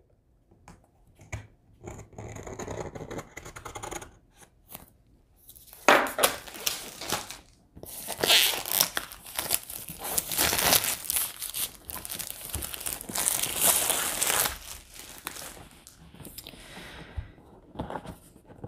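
Plastic shrink wrap being torn off a new board game box and crinkled, with light handling clicks at first, then a long stretch of loud tearing and crackling in the middle that eases off near the end.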